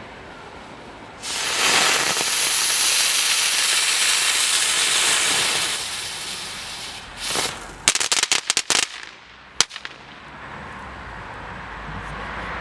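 Ground-spinner firework (Lesli Chilli Spinner) igniting and spinning with a loud, steady hiss for about five seconds, then fading. It ends in its crackling finale: a quick run of sharp cracks, then one last crack.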